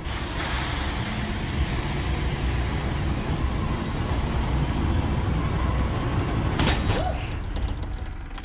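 Film sound effect of the alien Engineer head bursting inside its sealed glass case: a loud, steady low rumble. A single sharp click comes about seven seconds in.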